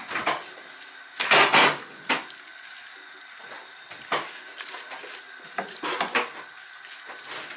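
Slotted spatula stirring diced potatoes and shredded chicken in sauce in a pan: irregular scrapes and knocks against the pan, the loudest about a second and a half in.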